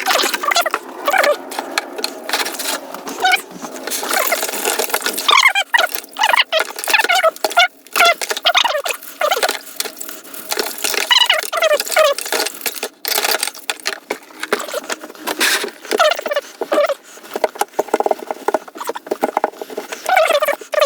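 Rusty F wrench parts being scrubbed and handled in a bicarbonate of soda wash after a vinegar soak, to neutralise the acid: irregular scraping, clicks and knocks, with short squeaks throughout.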